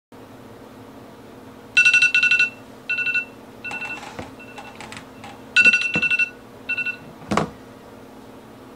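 Smartphone sounding a repeating electronic tone: a quick run of rapid beeps and a shorter run, then the same pattern again a few seconds later. A loud thump comes about seven seconds in, after which the beeping stops.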